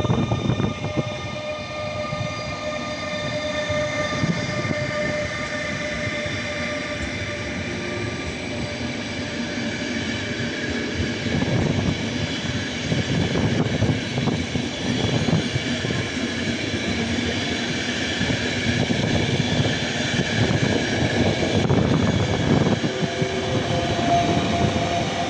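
ÖBB Class 1116 Taurus electric locomotive pulling a Eurocity train away, its traction electrics giving steady whining tones for the first several seconds. Then comes the rumble and clatter of the passenger coaches rolling past over the rail joints, and a second Taurus locomotive goes by near the end with another whining tone.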